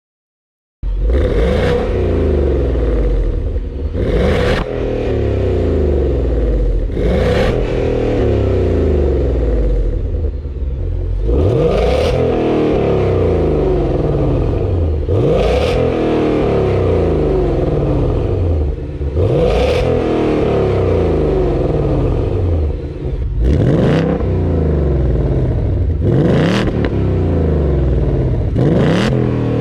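Ford Mustang GT's 5.0-litre V8 exhaust, cutting in abruptly about a second in and revving up and easing off over and over, about every three to four seconds.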